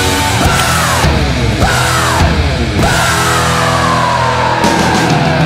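Loud heavy rock music with several long notes sliding down in pitch.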